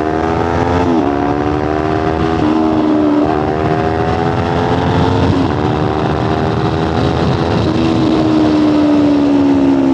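Kawasaki Ninja 500's parallel-twin engine accelerating on the road. The pitch climbs and drops back sharply several times as it shifts up through the gears, then slowly sinks near the end as the throttle eases off.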